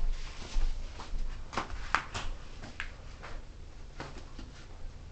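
A sheet of paper being folded and creased by hand: a few sharp crinkles and rustles in the middle, over soft handling noise.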